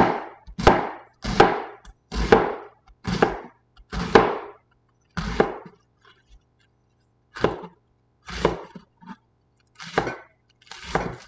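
Chef's knife slicing through a head of green cabbage on a plastic cutting board: about a dozen crunching cuts, each ending in a knock of the blade on the board, roughly one a second, with a pause of about two seconds in the middle.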